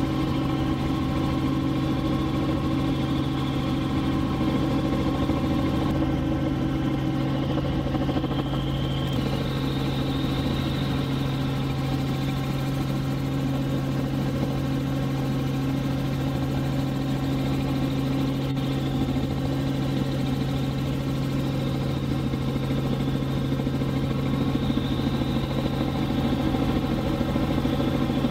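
Helicopter cabin noise in steady flight: the unbroken drone of the engine and rotor, a strong low hum with a stack of steady higher tones above it.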